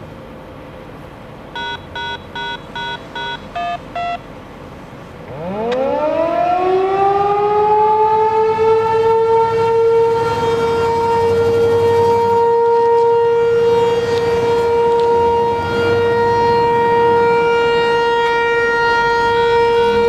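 A short run of electronic beeps, five equal tones and then two at a different pitch, followed about five seconds in by an American Signal T-128 outdoor warning siren winding up from a low growl into a loud, steady tone that holds.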